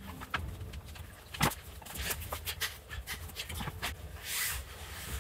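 Clothing rubbing against a lavalier microphone left in a shirt pocket while a shirt and tie are put on: muffled rustling with many sharp clicks and knocks, and a longer scrape about four seconds in.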